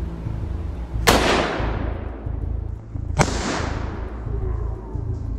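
Hunting rifle fired: a sharp crack about a second in that rings out and fades slowly, then a second similar crack about two seconds later.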